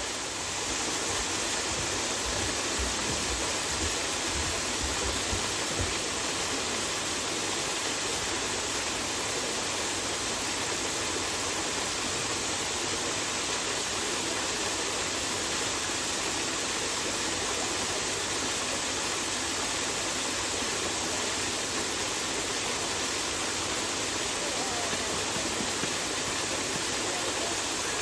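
Waterfall splashing down a rock face: a steady, even hiss of falling water.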